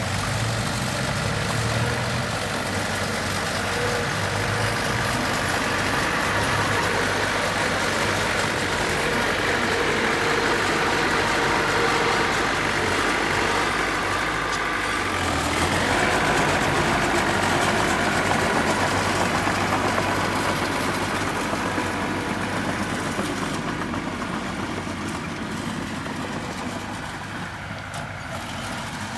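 Diesel engine of a piece of heavy earthmoving equipment running steadily under work. It swells a little about halfway through and fades gradually over the last few seconds.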